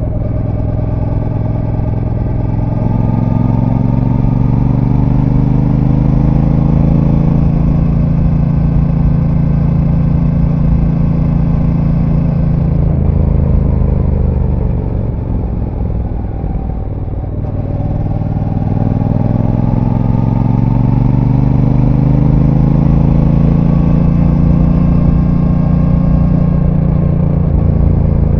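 Brixton Cromwell 1200's parallel-twin engine through its stock exhaust, heard on board while riding. The revs climb steadily for about ten seconds, drop and fall away about halfway through as the throttle is eased, then climb steadily again.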